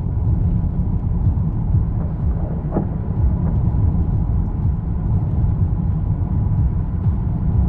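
A steady low rumble, strongest in the deep bass and unbroken throughout.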